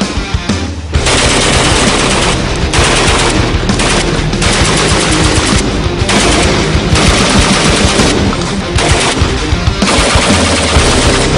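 Loud heavy metal music, with steady low guitar and bass tones under fast, dense, sharp hits and stretches of loud distorted noise that break off briefly every second or two.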